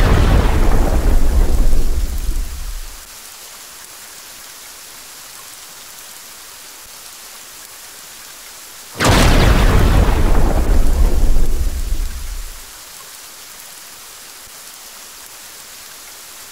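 Thunder over steady rain. A loud peal at the start fades back to the rain about three seconds in, and a second peal breaks about nine seconds in and dies away over the next three or four seconds.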